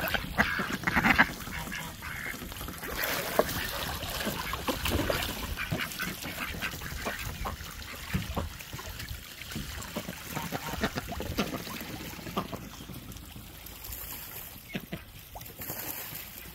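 Domestic ducks quacking and geese honking, repeated short calls that are busiest in the first few seconds and thin out later.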